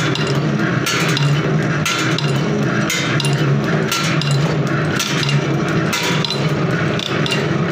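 Automatic thread rolling and knurling machine running, with a steady hum and sharp metallic clinks about once a second as the blanks are fed and rolled.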